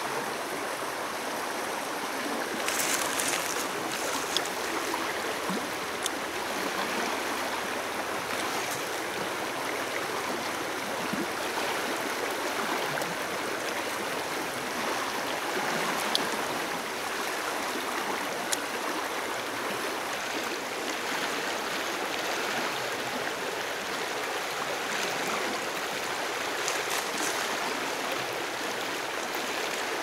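Steady rushing of a flowing river, with a few light ticks.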